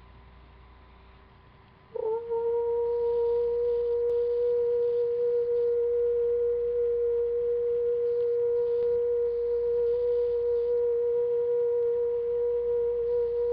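A person's voice holding one long, steady sung note. It starts suddenly about two seconds in and is held at an even pitch without a break.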